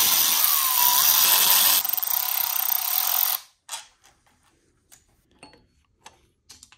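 Cordless electric ratchet running as it spins out the bolts of the MultiAir actuator brick on a Fiat 1.4 MultiAir cylinder head. Its note changes partway through, and it stops suddenly a little past halfway. After that come a few light clicks and knocks as the brick is handled.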